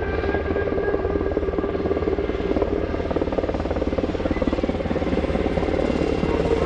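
UH-60 Black Hawk helicopter flying low past: fast, even rotor chop over a steady turbine whine and deep rumble, growing slightly louder near the end.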